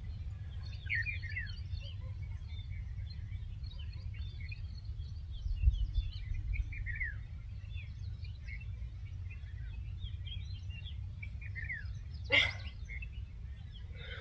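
Several small birds chirping, with many short downward-sliding chirps scattered throughout, over a steady low rumble. A short breathy noise sounds about twelve seconds in.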